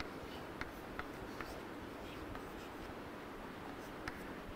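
Chalk writing on a blackboard: a few faint, sharp, irregular taps and scratches of the chalk as an equation is written, over a low room hiss.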